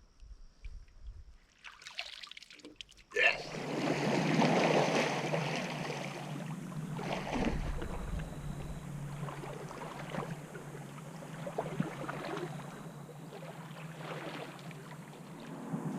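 Water sloshing and splashing under a steady low drone, starting suddenly about three seconds in after a quiet stretch.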